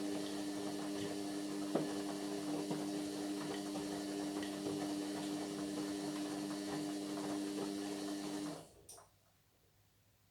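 Indesit MyTime washing machine running with a steady electrical hum over a rushing hiss, which cuts off about eight and a half seconds in, with a short blip just after.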